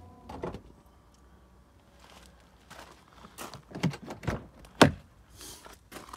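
Audi S6 rear door being opened: a few knocks and clicks from the handle, then one sharp latch click about five seconds in as the door comes open.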